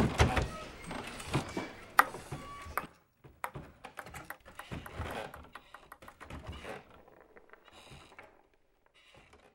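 A ping-pong ball bouncing and ticking across a hard floor, light clicks growing fainter as it rolls to a stop. The first few seconds hold a louder jumble of clatter with a sharp knock about two seconds in.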